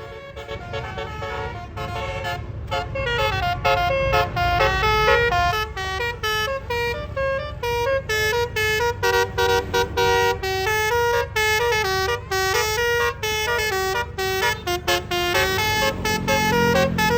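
Bus 'telolet basuri' musical air horn playing a quick tune of short notes stepping up and down, over the low rumble of the bus's engine.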